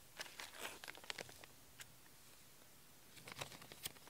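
Faint crinkling and rustling of small plastic parts bags being handled, in two short spells: through the first second and a half and again about three seconds in.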